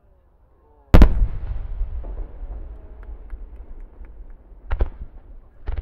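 Large aerial firework shells bursting. A heavy boom comes about a second in and rumbles and echoes away over a few seconds with faint scattered pops, then two more sharp bangs come near the end.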